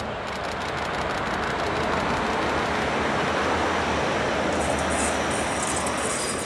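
Diesel multiple unit passing close by: a steady low engine hum under the rolling noise of its wheels on the rails, growing louder over the first couple of seconds as it nears.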